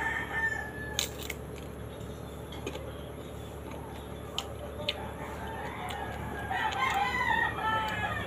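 Rooster crowing in the background: one crow ends about a second in, and another comes near the end. A few sharp crunches come from chewing raw green mango.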